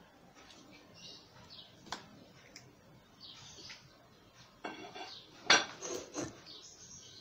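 Chicken pieces being put into an empty stainless steel pot from a plate, with scattered clinks and knocks of plate and pot. The knocks bunch up in the second half, the loudest about five and a half seconds in.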